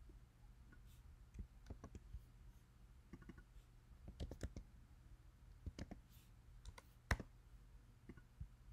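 Faint, irregular clicks of a computer keyboard and mouse as text is selected, pasted and typed, with one louder click about seven seconds in.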